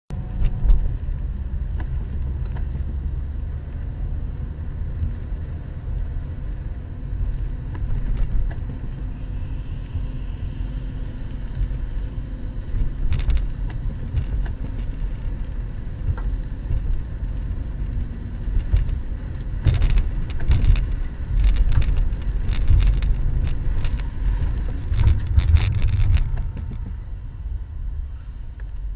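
Low rumble of a car's engine and tyres on a wet road, picked up inside the cabin by a dashcam microphone. A run of short, sharp knocks comes in the later part.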